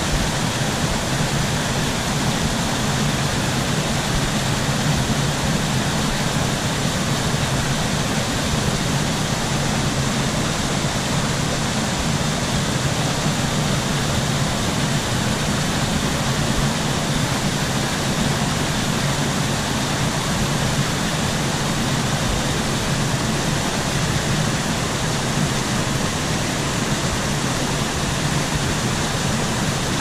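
Small forest waterfall cascading over rocks into a shallow pool: a steady rush of falling water, even throughout.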